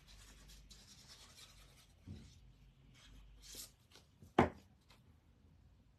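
Paper strips being handled and rubbed while glued down, with soft rustles and a sharp knock on the table about four and a half seconds in, plus a smaller one about two seconds in.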